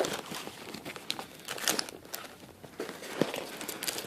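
Packaging crinkling and rustling as small nail-care tools are unpacked by hand, with scattered small clicks; a little quieter past the middle.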